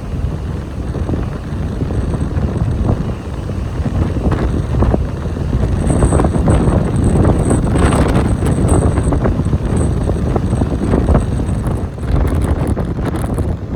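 Strong wind buffeting the microphone: a loud, low, gusting rumble, with scattered short clicks through it.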